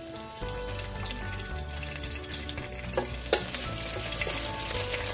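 Curry leaves sizzling and spitting in hot oil in a stainless steel pot, the hiss starting about half a second in. The leaves are stirred with a metal spoon, which gives two sharp clicks about three seconds in.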